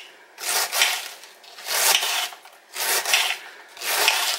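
Kitchen knife slicing through a head of lettuce onto a glass cutting board: four rasping cutting strokes, about one a second.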